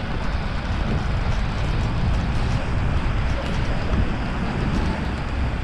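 Wind buffeting the camera's microphone: a steady low rumble, with faint scattered ticks of rain striking the camera.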